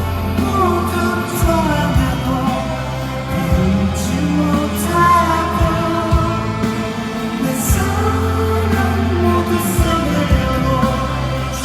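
Rock band playing a song live, with a singer's voice carried over steady bass and drums.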